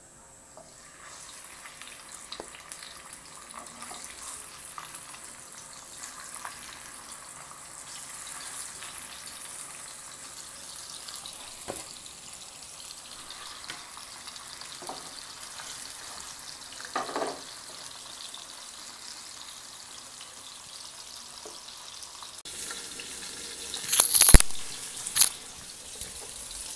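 Pieces of catla fish, head included, frying in hot oil in a nonstick pan: a steady sizzle that starts about a second in, with two loud sharp pops near the end.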